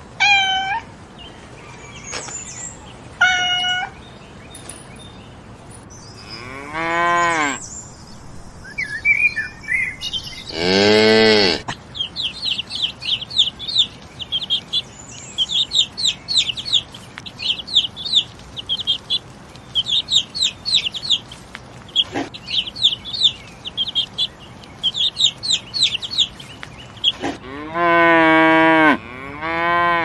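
A domestic cat meows twice in the first few seconds, followed by two longer, lower drawn-out calls. Then newly hatched chicks peep rapidly and without a break for about fifteen seconds. Near the end comes one long cow moo.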